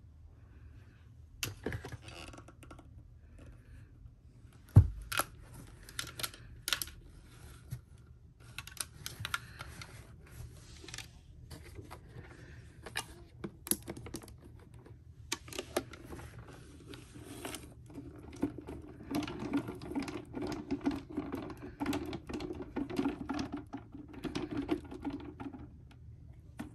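Irregular clicks and clattering of hard plastic as the Shark NV380's clear dust cup is detached and handled, with a longer rattling stretch in the later part.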